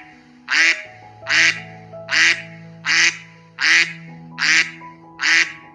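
A duck quacking over and over, seven evenly spaced quacks a little more than one a second, over soft sustained background music.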